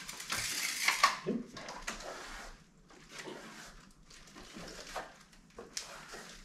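Steel pool trowel scraping across a setting plaster skim in repeated strokes: a dense run in the first second, the loudest about a second in, then shorter, fainter strokes.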